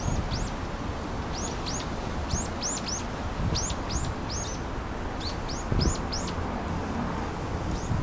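Small songbirds in the blossoming cherry trees calling in a rapid run of short, high chirps, about two to three a second, thinning out near the end. A low wind rumble lies underneath.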